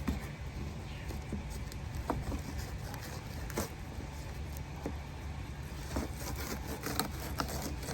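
Fillet knife skinning a mutton snapper fillet: a few faint scrapes and clicks of the blade against the skin and cutting board, over a steady low hum.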